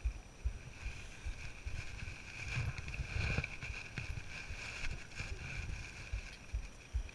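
A hiker's footsteps on a trail heading downhill, thudding about twice a second, with a steady high-pitched hum behind them.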